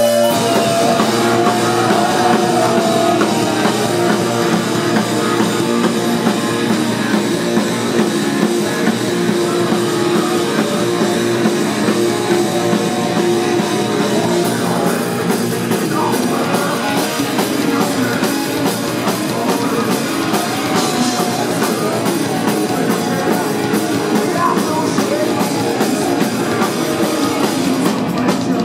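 Rock band playing live, with electric guitar and a drum kit, at a steady level.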